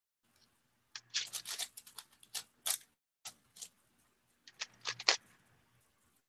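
A plastic speedcube being turned by hand: irregular clusters of quick clicking and scraping layer turns with short pauses between them.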